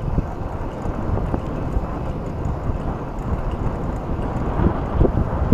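Wind buffeting the microphone as an electric mountain bike rides along at speed: a steady low rush, with tyre rumble on the asphalt underneath.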